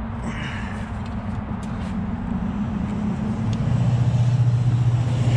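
A motor vehicle engine running with a steady low hum, getting louder about three and a half seconds in.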